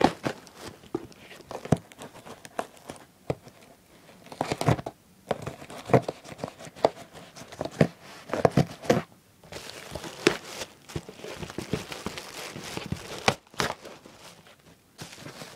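Parcel packaging being torn open and crumpled by hand: irregular crinkling, tearing and sharp rustles, with a longer stretch of steady rustling past the middle.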